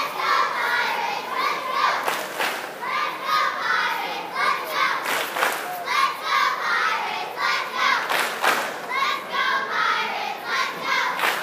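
Girls' cheerleading squad shouting a cheer together in rhythmic phrases, with a few sharp thuds from the routine.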